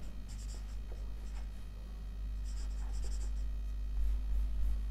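Marker pen writing on a whiteboard: a few short, faint scratchy strokes as a word is written, over a steady low hum.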